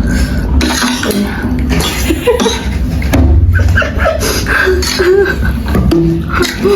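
Close-up mouth sounds of eating noodles: chewing and slurping, mixed with a few short muffled vocal sounds.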